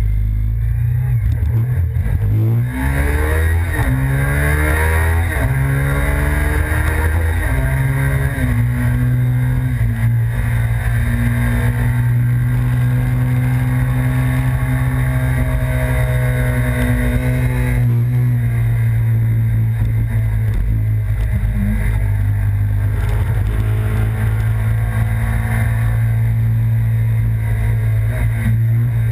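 2005 Suzuki SV1000S's 90-degree V-twin engine accelerating hard, its pitch climbing in steps through several gears over the first few seconds, then running steadily at speed. The sound eases about 18 seconds in.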